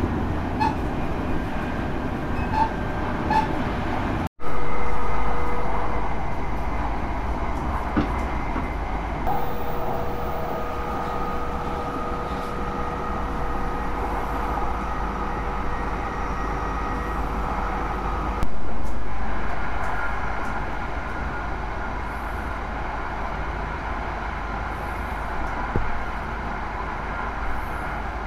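Steady running noise inside the passenger cabin of an E5 series Hayabusa shinkansen, travelling at a reduced speed of about 120–140 km/h under an earthquake speed restriction. The sound cuts out for a moment about four seconds in and comes back louder, and jumps louder again about eighteen seconds in.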